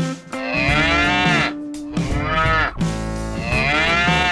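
A cow mooing twice, two long calls about a second and a half each, with a short gap between them.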